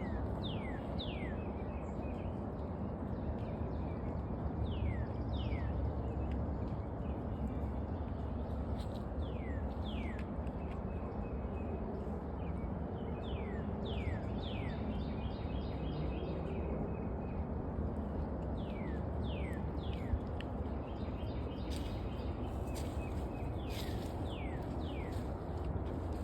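Small birds calling with short, sharp notes that sweep downward, often two or three in quick succession, with a few brief trills, over a steady low rumble of outdoor background noise.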